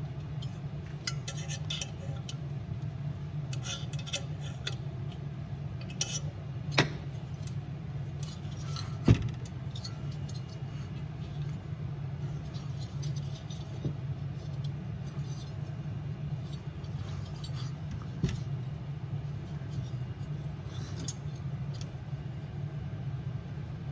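Small metal heater parts and tools clinking and clicking as a diesel heater's gasket and burn chamber are fitted back in, with three sharper knocks, over a steady low hum.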